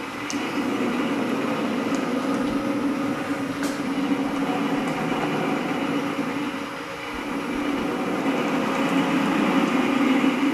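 Steady mechanical hum and rumble of the motor-driven MDF turntables of a wooden linkage machine turning, with a few faint ticks.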